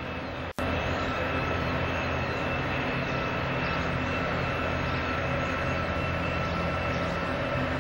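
Steady low drone of the SS Badger, a coal-fired steam carferry under way in the harbour, with a faint steady high whine over it. The sound drops out for a moment about half a second in.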